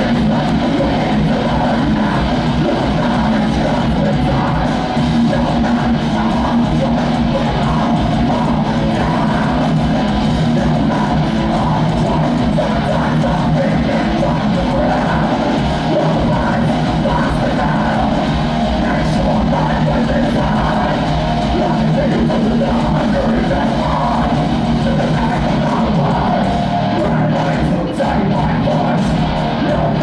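A heavy metal band playing live and loud: distorted electric guitars, bass and drum kit, with shouted vocals, heard from within the crowd.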